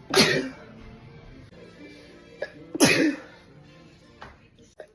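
A young woman sneezing twice during a sneeze attack, the sneezes sharp and loud and about two and a half seconds apart, with faint music underneath.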